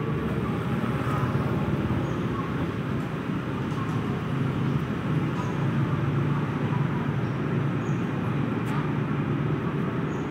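Steady low rumble of outdoor background noise, like traffic or engines running nearby.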